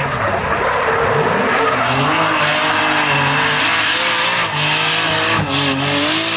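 2JZ-swapped Nissan Silvia S15 drift car sliding sideways, its engine revving up and down repeatedly over the steady hiss and squeal of spinning rear tyres.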